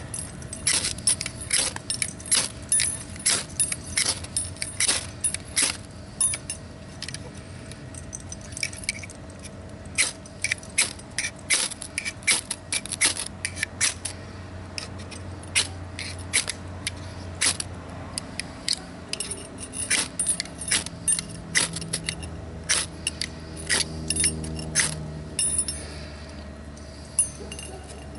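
Dozens of short, sharp metallic scraping strokes in quick irregular runs, a few a second, with a brief lull partway through and fewer strokes near the end, over a faint steady hum.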